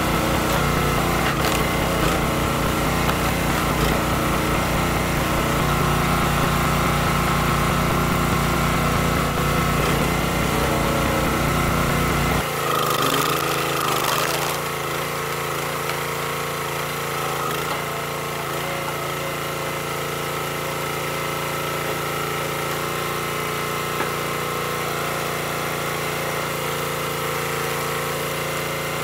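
Small gas engine of a hydraulic log splitter running steadily. About halfway the heavy low rumble cuts off abruptly and a lighter, steadier engine drone carries on. A brief crackle comes just after the change.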